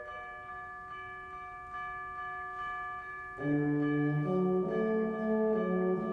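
Wind ensemble playing: soft sustained high notes, then the low brass comes in louder with moving chords about three and a half seconds in.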